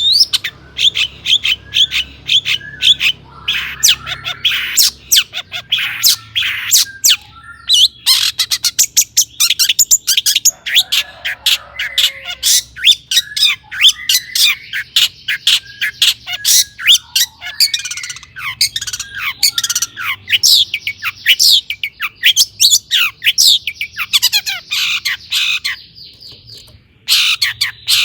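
Long-tailed shrike singing loudly and almost without pause: a rapid string of short, sharp notes, many sliding down in pitch. There is a brief lull near the end, then the song resumes.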